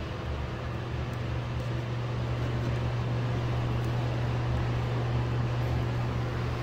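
Nutone high-velocity ceiling exhaust fan running, a steady low hum with a rush of air, heard close up at its grille.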